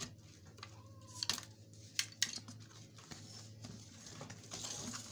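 Sharp plastic clicks and taps from the latches and casing of a flat-panel computer monitor being unclipped by hand, three louder snaps a little over a second in and around two seconds in.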